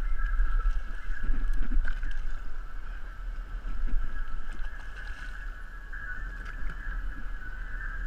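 Wind rumbling on the microphone and water lapping against a small boat's hull, over a steady high-pitched whine.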